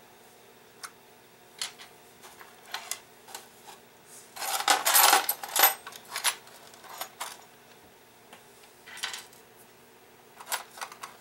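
Small brass clock parts clinking and rattling in a plastic parts tray as it is handled and searched: scattered light clicks, with a louder spell of rattling about halfway through.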